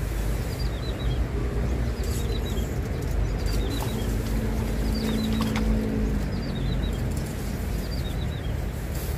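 A small bird repeating a short call of a few quick high chirps every second or two, over a steady low outdoor rumble. A low hum swells briefly about four to six seconds in.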